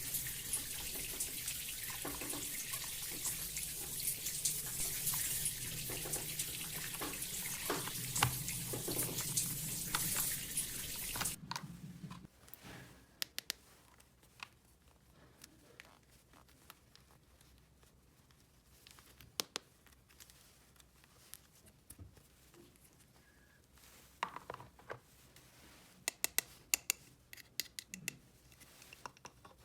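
Water running in a steady stream, as from a small tap, for about eleven seconds, then shutting off suddenly. Afterwards come scattered light clicks and taps, with a quick cluster of them near the end.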